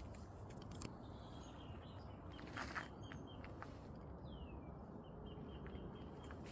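Faint outdoor nature ambience: a low steady background with scattered small clicks and rustles, one louder rustle a little before halfway, and a short falling bird call about two-thirds through.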